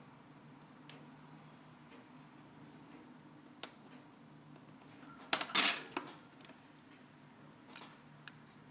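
Small metal repair tools clicking and tapping against iPhone 4S parts during reassembly: a few sharp single clicks, with a louder short clatter and scrape about five and a half seconds in. A faint steady hum runs underneath.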